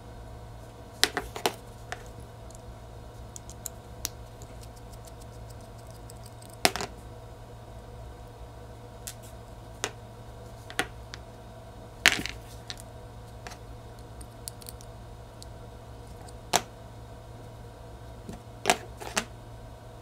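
Small chrome water valve being taken apart by hand, its metal handle, nut and washer clicking and clinking, about a dozen sharp taps scattered irregularly over a steady low hum.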